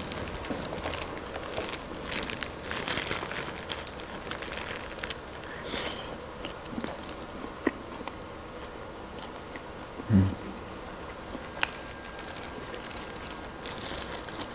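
Close-miked crunching and chewing of a crispy fried chicken wing, the crunches densest in the first half and then thinning to scattered clicks. A short low hum from the eater about ten seconds in.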